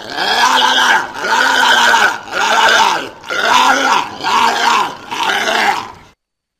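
A walrus calling over and over: about seven short, loud calls in a steady series, each rising and then falling in pitch, stopping suddenly about six seconds in.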